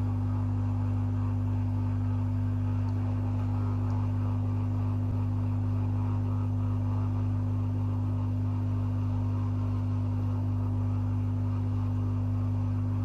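Hot air rework station blowing a steady stream of hot air with a constant low hum, held over a laptop motherboard's I/O controller to reflow fluxed solder on the pins.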